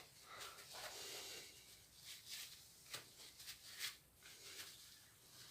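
Faint swishing of toilet paper wiped over a phone's screen and back, with a few light ticks.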